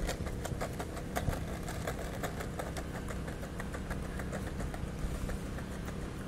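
Skateboard wheels rolling slowly over stone paving slabs: a steady low rumble with regular faint clicks, about three a second, as the wheels cross the joints.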